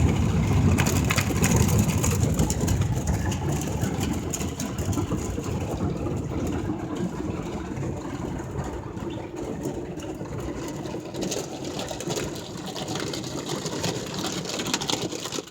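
Cloth brushes of a Ryko SoftGloss XS automatic car wash scrubbing and slapping against the car body, heard from inside the car. It is a dense wash of rubbing and quick patters that slowly grows quieter.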